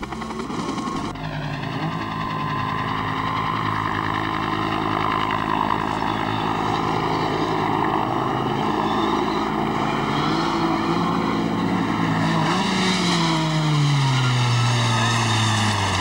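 Rally car engines running hard on a gravel special stage, with a helicopter overhead at the start. Near the end, one engine's note falls steadily over about three seconds.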